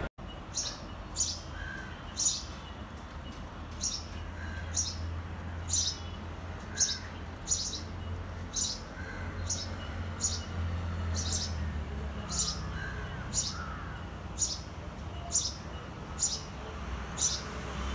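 Male house sparrow chirping: short, high cheeps repeated steadily, about two a second, over a low steady hum.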